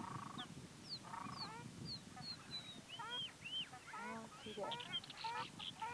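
Black terns calling: many short, nasal calls overlap at a busy pace. A run of thin, high, descending whistles comes between about one and three seconds in.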